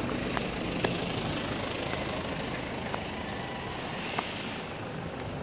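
Steady low rumble of a motor vehicle running nearby, with a few short sharp clicks on top, the loudest a little under a second in and another about four seconds in.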